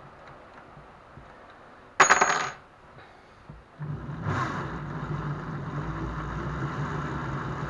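A sharp metallic clink about two seconds in, then from about four seconds an electric drill runs steadily, spinning a car alternator converted with a permanent-magnet rotor so that it generates power.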